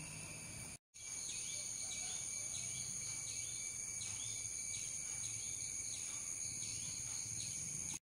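Steady chorus of insects such as crickets, several continuous high-pitched tones layered together, with a short chirp repeating about one and a half times a second. The sound drops out briefly about a second in.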